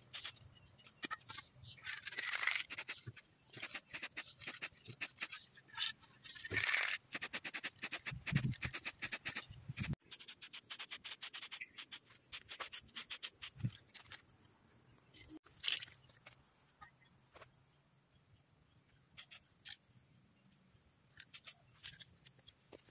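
Aerosol spray-paint can spraying in short hissing bursts, twice in the first half, amid many light clicks and knocks of handling.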